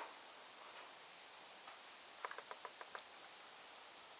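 Near silence: room tone, with a quick run of five or six faint light ticks a little over two seconds in.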